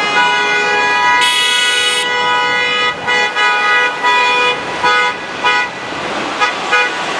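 Fire truck horn sounding one long held blast for about three seconds, then a rapid series of short blasts.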